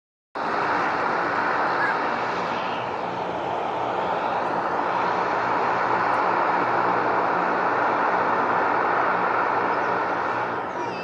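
Jet airliner's engines close by: a loud, steady roaring rush that starts abruptly about half a second in and eases slightly near the end.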